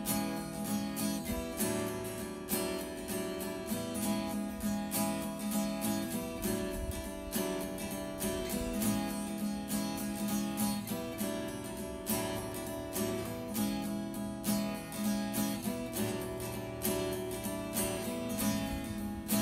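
Background music: a strummed acoustic guitar playing a steady rhythm.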